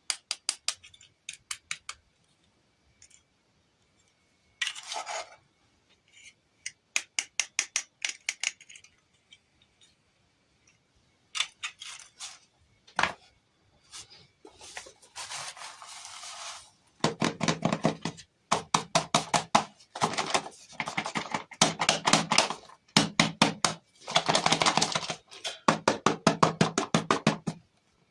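Bursts of rapid small clicks and taps, as of small hard objects being handled; sparse at first, then dense and louder over roughly the last ten seconds.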